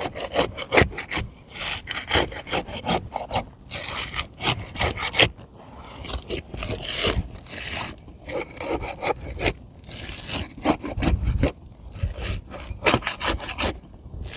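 A pry bar scraping under an asphalt shingle in quick, uneven strokes, breaking the tar seal line to unseal the shingle, with the gritty rasp of the shingle's granules.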